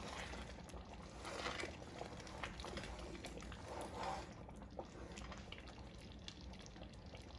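Thick red lentil stew (misir wot) simmering in a pot, with faint bubbling and a wooden spoon stirring through it, louder about one and a half and four seconds in. It is the stew's final simmer on lowered heat as it thickens.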